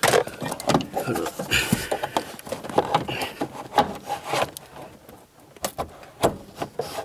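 Short shifter parts and shift rod being forced into place by hand: irregular metal clicks, knocks and scraping, with a brief lull about five seconds in.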